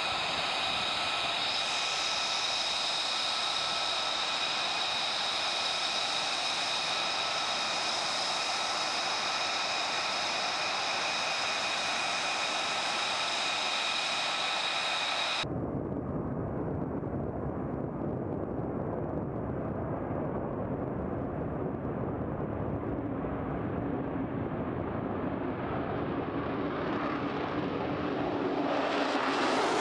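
F-35B's Pratt & Whitney F135 turbofan whining steadily at taxi power, with several high steady tones over the engine noise. About halfway through the sound cuts abruptly to a deep jet roar, which grows louder and brighter near the end as the jet lifts off.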